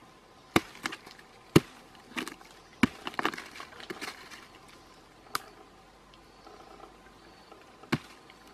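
A hand-held stone chopper striking a rotten log: about eight sharp knocks at uneven intervals, bunched in the first half with one more near the end, with the crackle and rustle of crumbling, shredded wood between blows.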